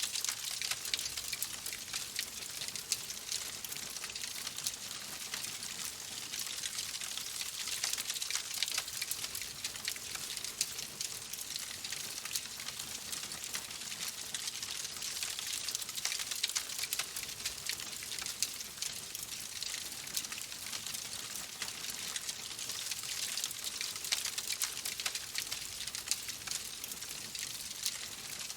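Wood fire crackling in a fireplace: a steady hiss with many small, quick pops and snaps.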